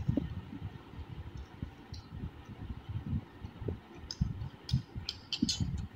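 Two people eating noodles fast from bowls: spoons and forks clicking against the bowls among soft, irregular low thumps, with a quick run of clicks about four to five and a half seconds in.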